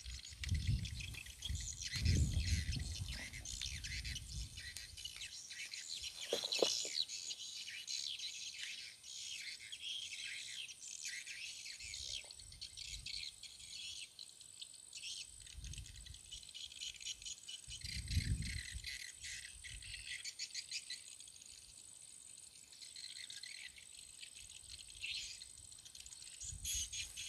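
Small birds chirping rapidly, joined about eight seconds in by a steady high-pitched insect drone. A few short low thuds come and go.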